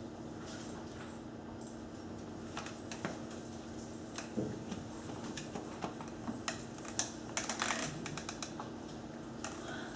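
Several computer keyboards being typed on: scattered, irregular keystrokes that come thickest about seven to eight seconds in, over a steady low hum.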